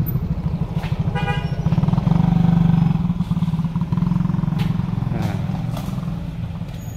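Motorcycle engine running close by with a rapid low pulsing, swelling louder for a second or so before easing off, and a short horn toot about a second in.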